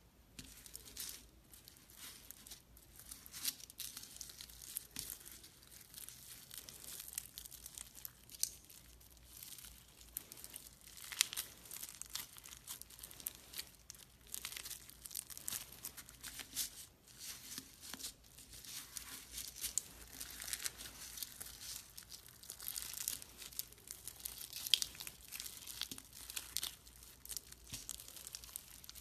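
Fishbowl slime (green slime packed with small clear beads) being squeezed, stretched and kneaded by hand: a continuous dense crackling and crunching of the beads, with sharper louder pops here and there.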